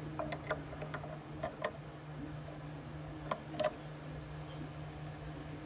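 Light metallic clicks and taps as the collet holder is handled and set on the drill bit sharpener's fixture. There is a cluster of clicks in the first two seconds and two more a little past three seconds, over a faint steady hum.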